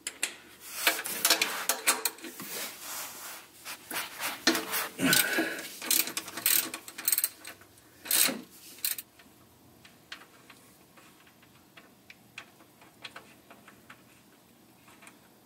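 Rubbing, scraping and clicking of a hand and tool working to loosen a fitting under the engine to drain the oil. The sounds are busy for about nine seconds, with two louder knocks near the middle, then fade to faint scattered ticks.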